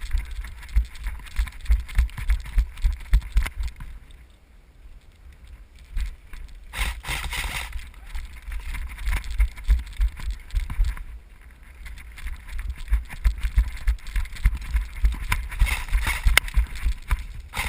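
Movement noise from a camera carried by a running airsoft player: quick low thumps of footsteps and gear jostling the mount, in runs with short pauses, plus rustling.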